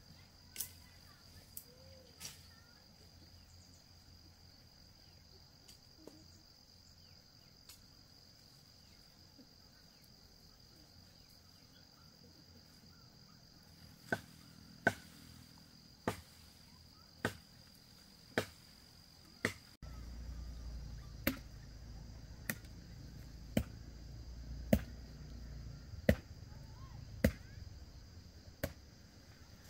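Wood being chopped by hand, sharp knocks about once a second starting about halfway through and growing louder in the last third, over a steady high insect drone.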